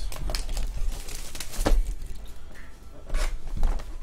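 Cardboard trading-card boxes being handled and set down on a table: several light knocks, with a stretch of rustling about a second in.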